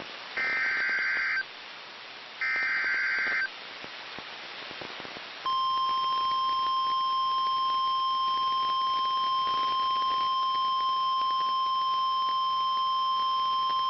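Emergency Alert System header: two raspy, warbling bursts of digital data tones, each about a second long and a second apart. From about five and a half seconds in comes the National Weather Service's warning alarm, one steady, piercing single-pitch tone held for about nine seconds, signalling that a severe thunderstorm warning follows.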